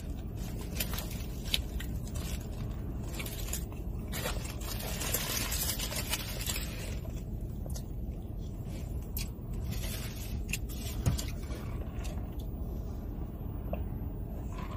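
Steady low rumble inside a car, with a paper food wrapper rustling and scraping and scattered small clicks; the rustling is thickest about four to six and a half seconds in.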